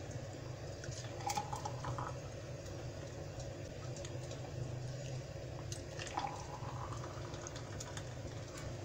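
Thick blended date milk pouring from a glass blender jug into drinking glasses, over a steady low hum, with a few light clinks about a second in and again around six seconds.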